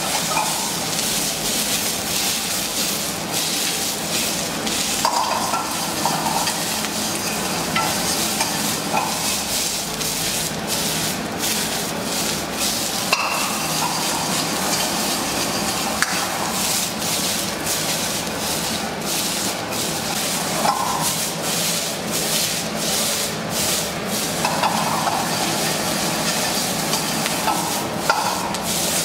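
Shredded cabbage and onion sizzling in a black wok over a gas flame while being stir-fried, with a metal ladle scraping and knocking against the pan again and again, more often in the second half.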